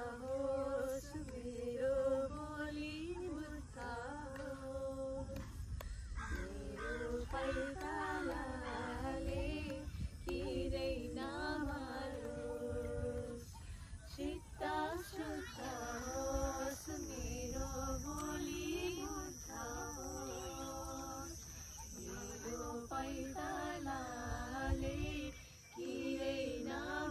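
Women singing together without accompaniment, long held notes with brief pauses for breath.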